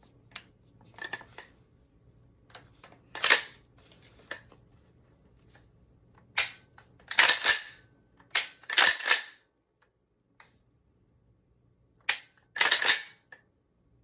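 Pump action of a freshly assembled GForce Arms 12-gauge shotgun being cycled by hand: a series of sharp metallic clacks, several in quick back-and-forth pairs, as the slide is racked to check that the action works.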